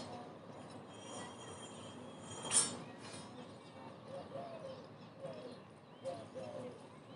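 Quiet room tone with faint bird calls in the background, short curved coos repeating from about four seconds in, and a single sharp click about two and a half seconds in.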